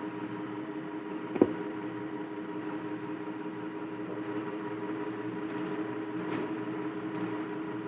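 A steady machine hum with a few held tones, with one sharp click about a second and a half in and a few faint clicks later.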